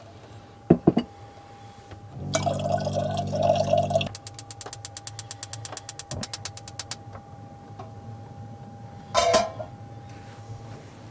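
A small motor hums for about two seconds with running liquid, then rapid, evenly spaced clicking lasts about three seconds. Sharp knocks come about a second in and again near the end.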